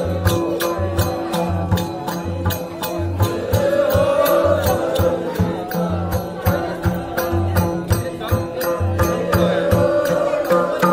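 Several madal hand drums beaten in a steady, even rhythm, with a group singing a chant-like folk song over them.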